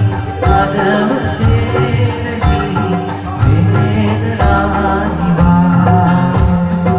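Band music with a steady beat: bass, drums and guitar playing.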